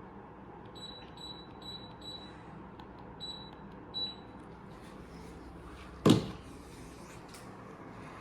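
Mini split air conditioner's indoor unit beeping: four short high beeps in quick succession, then two more, as if acknowledging remote-control presses. About six seconds in there is a single sharp, loud knock.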